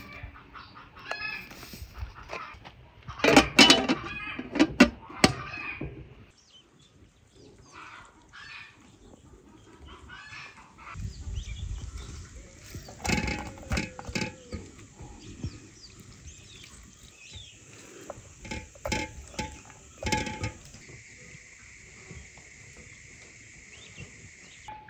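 Hands squeezing the juice out of grated onion over a glass bowl, with wet squelches and drips, amid clucking chickens. A steady high-pitched hiss sets in about halfway through and lasts until near the end.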